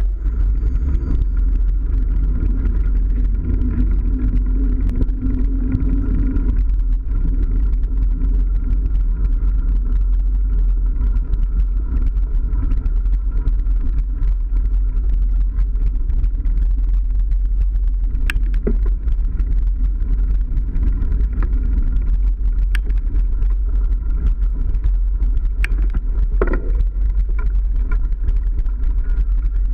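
Steady low rumble of wind and movement on the microphone of a camera riding on a mountain bike over dirt trails, with a few sharp knocks and clicks from bumps in the trail.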